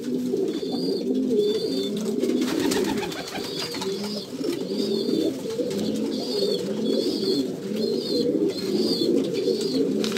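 A flock of domestic pigeons cooing together, a dense overlapping murmur of coos throughout. A high, short chirp repeats over it about once or twice a second.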